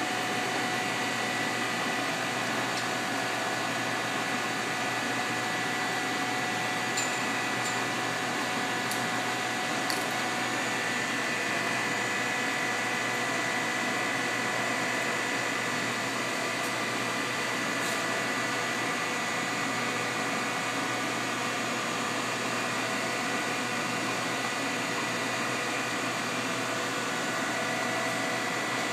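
Matsuura MC-600V vertical machining center running under power: a steady mechanical hum with several high tones held throughout, and a few faint clicks.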